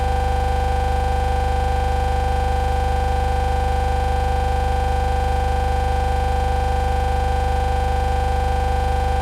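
Electronic glitch sound effect: a steady digital buzz made of several held tones with a fast, even flutter, unchanging throughout.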